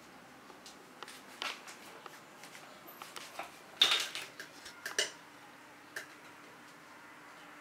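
A cat pawing at a cork inside a homemade toy of plastic pipe elbows: irregular light clicks and knocks of hard plastic, loudest about four seconds in and again about five seconds in.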